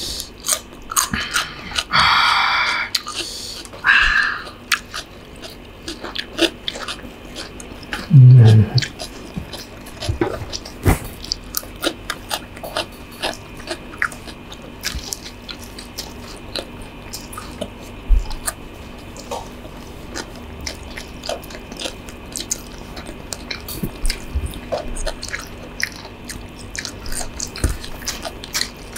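Close-miked eating sounds: chewing and biting stir-fried instant noodles with chicken and fried egg, with many small wet mouth clicks. There are two louder slurps in the first few seconds and a short low hum about eight seconds in.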